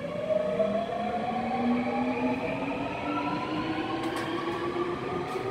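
Seoul Subway Line 3 first-batch train pulling out of the station, its traction motors giving a whine of several tones that rises steadily in pitch as it accelerates. A few sharp clicks come from about four seconds in.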